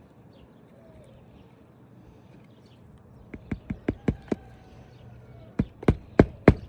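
Hammer driving roofing nails through asphalt shingles: a quick run of about six sharp strikes a little over three seconds in, a short pause, then another run of strikes near the end.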